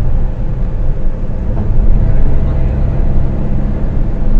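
Car interior noise while driving: a steady, loud low rumble of engine and road noise picked up by a phone microphone inside the cabin.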